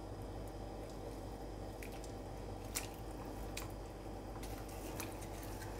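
Raw beef chunks pushed off a glass bowl with a wooden spoon and dropping into a pot of stock: faint wet squelches, with a few light clicks of the spoon against the bowl.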